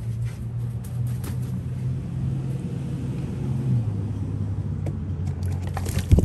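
A low steady hum, like a motor running, that drops slightly in pitch about four seconds in. Scattered clicks run over it, and there is a sharp, louder knock near the end.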